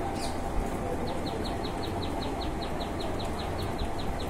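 Steady rain falling, with a bird calling over it: a brief falling whistle at the start, then from about a second in a rapid, even series of short falling chirps, about five a second.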